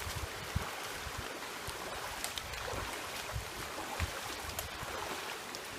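Creek water running steadily, with scattered low thumps on the microphone.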